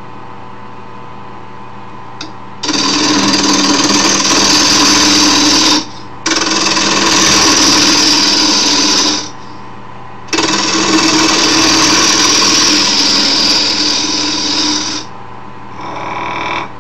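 Wood lathe running with a steady hum while a turning tool cuts the spinning scrap-wood handle blank, roughing it round. There are three loud cutting passes of a few seconds each, with the motor hum alone between them.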